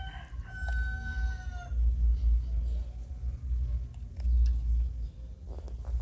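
A rooster crowing: the long last note of its crow, held and then dipping slightly, ends about a second and a half in. Under it is a low rumble that swells and fades.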